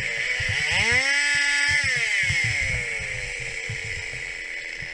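Stihl 021 two-stroke chainsaw revved up to full throttle: the engine pitch climbs sharply, holds high for about a second, then falls slowly back toward idle as the throttle is released.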